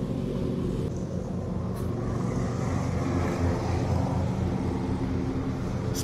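Ride-on lawn tractor collecting fallen leaves, its engine running steadily, with a rushing hiss that swells about halfway through.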